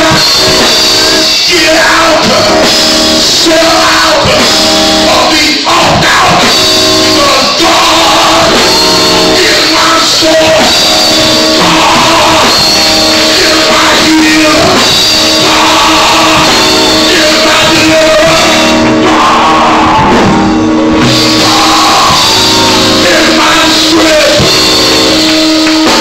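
Live gospel music: a man singing loudly into a handheld microphone over a band, with steady held chords beneath the voice.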